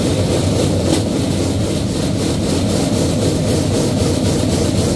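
Rail bike's steel wheels rolling along the rails: a steady, loud rumble with faint, rapid ticking over it.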